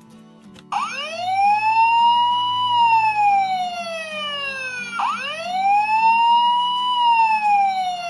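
Tonka Toughest Minis toy fire engine's electronic siren, set off by a click of its button: a slow wail that rises for about two seconds, falls back down, and starts over about five seconds in.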